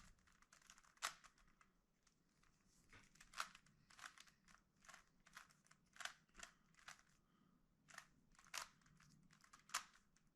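Rubik's Cube layers being turned by hand: faint, irregular plastic clicks and clacks, about one or two a second.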